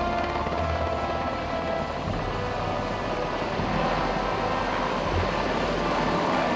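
Helicopter flying, a steady rotor and engine noise, with faint music underneath.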